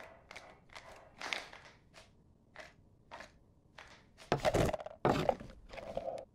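Light Foley footsteps of a small animated squirrel, short soft taps a few times a second, then from about four seconds in a louder clatter and several heavy thunks as a pile of acorns is shoved and tumbles into a tray.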